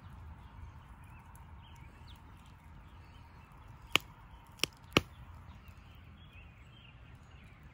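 Campfire burning with a low steady rumble, giving three sharp pops in quick succession a little past the middle.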